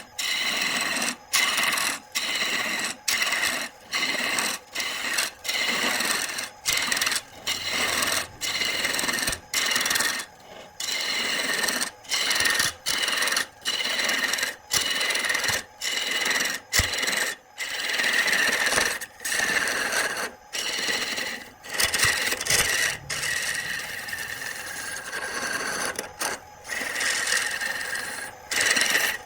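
Wood being cut on a lathe with a hand-held turning tool: a scraping, rasping cut that comes in quick strokes, about two a second with short breaks between, running on in longer unbroken cuts in places.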